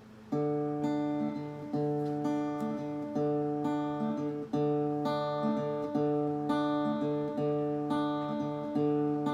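Acoustic guitar playing a steady, repeating chord pattern as the instrumental intro to a song, starting about a third of a second in.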